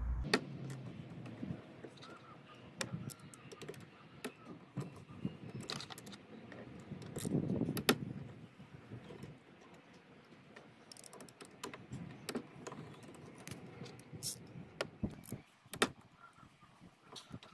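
Scattered metallic clicks and clinks of a hand driver with a Torx T30 bit undoing the bolts on a diesel fuel filter housing lid, with tool handling noise in between.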